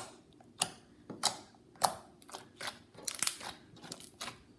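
Freshly made slime being squeezed and worked by hand, giving about a dozen short, sharp clicks and pops at an irregular pace, closer together in the second half.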